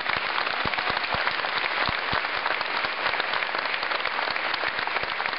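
Audience applauding, many hands clapping together in a steady, dense patter.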